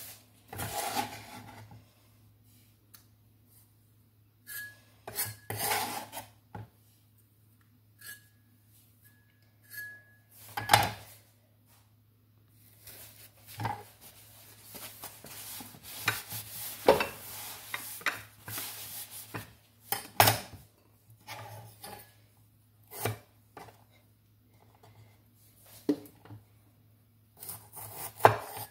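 Kitchen knife chopping tomato and green chili pepper on a wooden cutting board: irregular sharp knocks of the blade on the board, with a long stretch of scraping and rubbing across the board in the middle.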